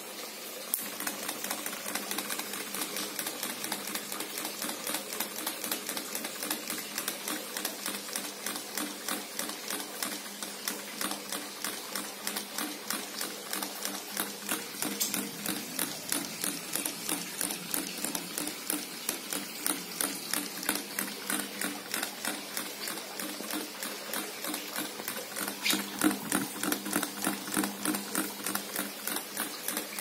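Teckyo mini ceiling fan running with a rapid, even clicking rhythm that begins about a second in: the hiccup of a fan that can't spin freely.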